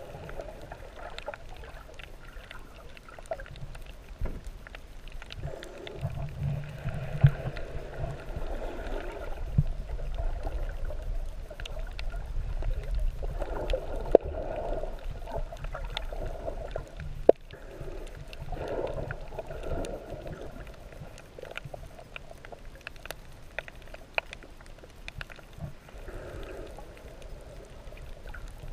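Muffled underwater noise heard by a submerged camera: a low rumble of moving water with slow swells every few seconds and scattered sharp clicks.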